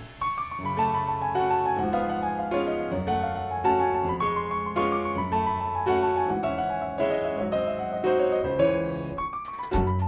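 Background music: a solo piano passage of single notes. Drums and bass come back in near the end.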